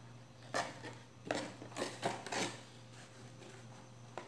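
Small cardboard box being handled and opened: several short scrapes and rustles of the card flaps, then a light click near the end.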